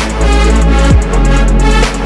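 Electronic background music with a heavy, sustained bass and a short falling sweep about a second in.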